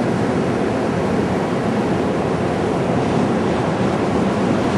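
Steady rushing road and wind noise of a car driving, heard from inside the car.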